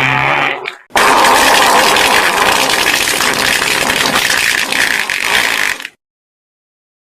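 Fart sound effects. A buzzing, pitched fart ends within the first half second. After a brief break, a long, loud, rough fart runs for about five seconds and cuts off abruptly, leaving dead silence.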